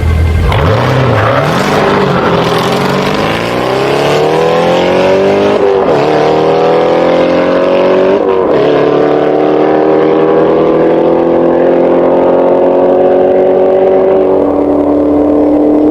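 Race car engine accelerating hard, its pitch climbing through the gears with two quick upshifts about six and eight seconds in, then pulling steadily higher at high revs.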